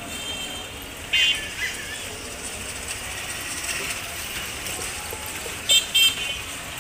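Street background noise with short horn toots: one about a second in and two quick toots near the end, the loudest sounds here.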